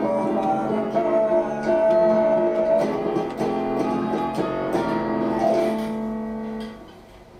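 Background music with a plucked guitar, dropping away sharply near the end.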